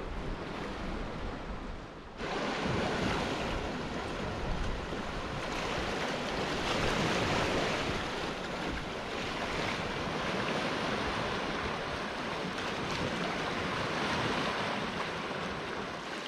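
Baltic Sea waves washing, with wind buffeting the microphone; the sound steps up louder about two seconds in.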